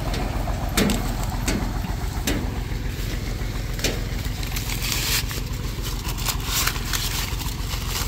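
Steady low drone of the IMT 549 DV tractor's diesel engine running with the corn picker. Dry corn leaves and husks rustle and crackle close by at irregular moments as they are brushed and handled.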